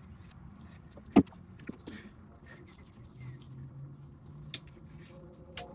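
Hands working a spark plug wire and its rubber boot, making scattered clicks and knocks, with one sharp, loud click about a second in.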